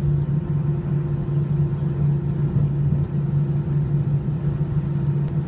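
Jet airliner's engines and cabin heard from inside over the wing while the plane taxis: a steady low hum over a constant rumble.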